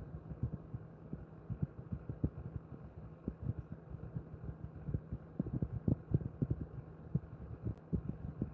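Hands massaging a dog's neck and shoulders: a quick, irregular run of soft low thumps and rubs, a little busier about halfway through.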